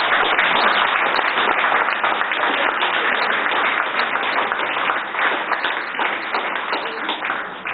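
Audience applauding, a dense run of clapping that eases off near the end.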